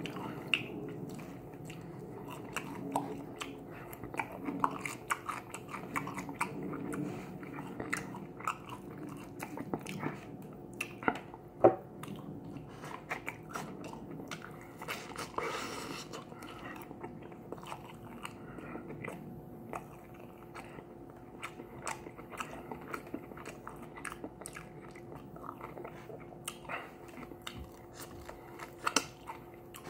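A person biting and chewing crispy Korean fried chicken wings close to the microphone, with irregular crunches and crackles and one sharp crunch about twelve seconds in. A faint steady hum runs underneath.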